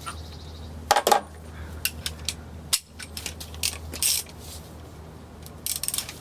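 Loose metal engine bolts and tools clinking and clattering as they are handled and set down, a few separate clinks spread out over a steady low hum.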